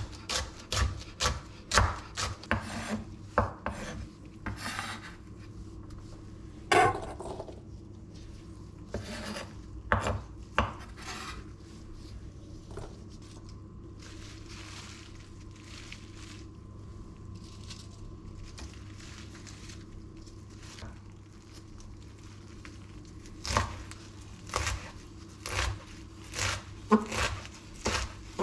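Chef's knife chopping on a wooden cutting board, sharp knocks about two a second, first through diced green vegetable. The chopping thins out and gives way to a long quieter stretch of rubbing and scraping on the board, then starts again near the end as herb leaves are chopped.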